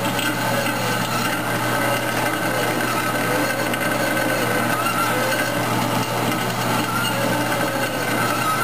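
Vertical band saw running steadily while a metal block for a sinker mould is fed by hand into the blade. A constant hum with wavering ringing tones over it.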